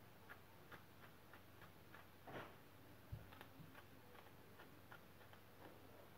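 Small scissors snipping yarn while trimming a wool pompom: faint, irregular clicks about two or three a second, with a soft bump about three seconds in.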